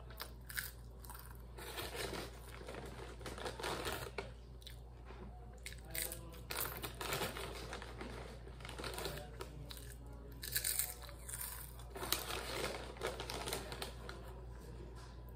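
Crisp chips crunched between the teeth while chewing, mixed with the crinkling of the foil snack bag as a hand reaches into it, in a run of short, uneven crackles.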